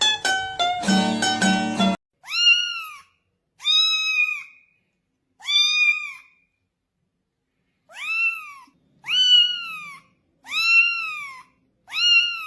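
A brief jingle of plucked notes, then a cat meowing over and over: seven separate high meows, each rising and falling, with short pauses between them.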